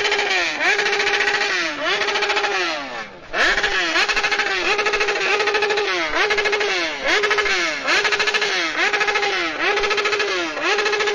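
Motorcycle engine revved over and over: each rev climbs quickly, holds steady briefly, then falls away, about once a second, with a short break about three seconds in.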